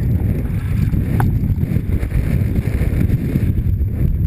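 Wind buffeting a helmet-mounted camera's microphone at speed on a mountain-bike descent, a loud, steady, churning rumble mixed with the bike's rattle over the dirt trail.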